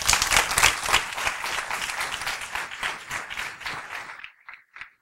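Audience applauding, loud at first and dying away about four seconds in. A few short, faint high notes follow near the end.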